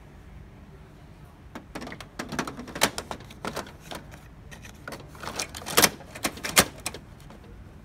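Irregular plastic clicks and knocks from a hand working inside the open toner-cartridge bay of an HP LaserJet Pro M203dn printer. They begin about a second and a half in and carry on for about five seconds, with the sharpest knocks near the end.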